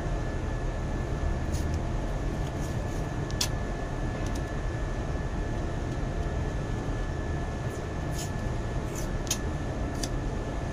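Steady drone of running machinery with a thin, unchanging whine above it, and a few light clicks and taps scattered through it.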